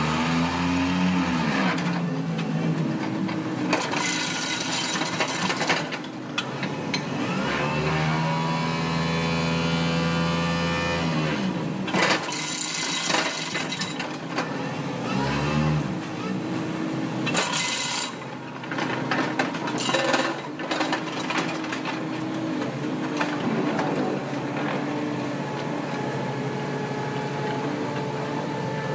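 Hydraulic excavator running a vibratory sheet-pile driver attachment on steel sheet piles. The machine's pitch rises and falls and holds steady for a few seconds near the middle, with several sharp metal clanks.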